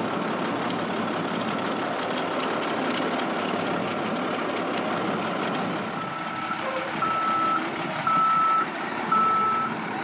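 A school bus's backup alarm starts beeping about six seconds in, roughly one beep a second, over the steady noise of an engine running.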